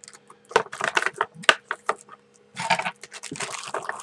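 Plastic packaging crinkling and crackling in the hands, in irregular rustles with sharp snaps, the densest stretch a little before three seconds in.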